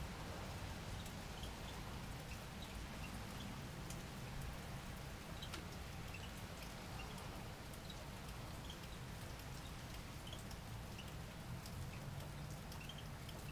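Steady light rain falling, with scattered drips ticking, a low steady rumble underneath and a few faint short high chirps.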